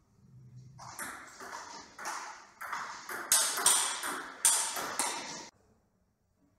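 Table tennis rally: the ball clicks back and forth off the table and the players' bats at about two to three hits a second, echoing in a large hall. It stops abruptly about a second before the end.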